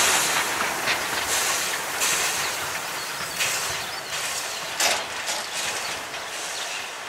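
Steam train running away down the line, its wheels clicking over the rail joints, the sound fading steadily as it recedes.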